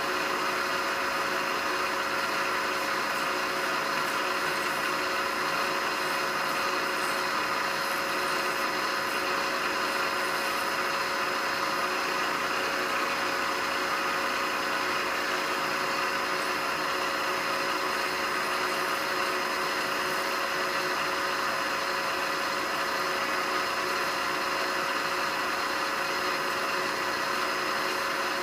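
Milling machine spindle running with a 1/8-inch high-speed steel end mill cleaning up a drilled hole in 4140 steel, a steady whine that does not change.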